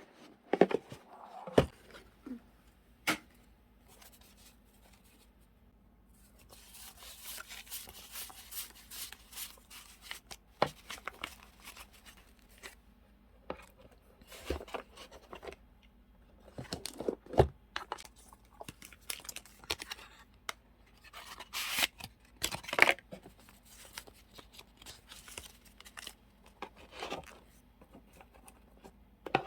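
Paper and sticker sheets being handled: scattered light taps and clicks, with two longer stretches of papery tearing or peeling noise, one a few seconds in and one about two-thirds of the way through.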